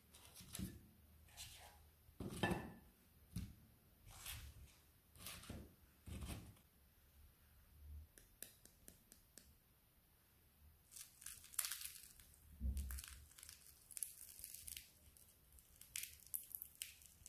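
Faint handling of crisp fried dough fritters on a paper-lined plate: soft taps and rustles, then a light crackle as a fritter's crisp crust is torn open by hand in the second half.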